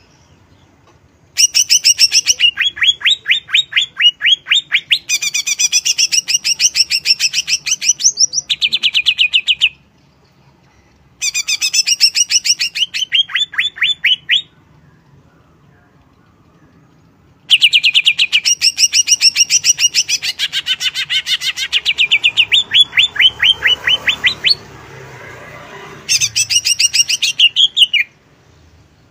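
Cucak ijo (green leafbird) singing loudly in bouts of rapid, repeated sliding notes, several a second, with pauses of a second or more between bouts.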